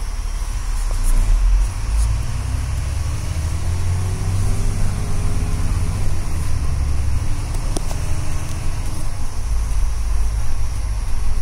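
Diesel engine of a VDL Gemini double-decker bus heard from the top deck, a heavy low rumble, rising in pitch as it accelerates a couple of seconds in, with a few light knocks and rattles.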